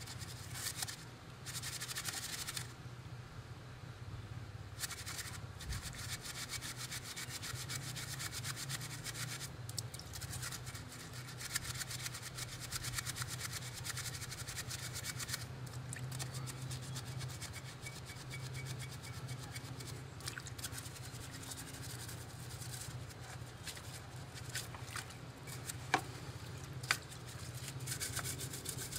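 Continuous scrubbing and scraping as a hand tool works back and forth over a grimy outboard tiller handle soaking in a bucket of old gasoline, cleaning off the caked dirt. Two sharp knocks near the end.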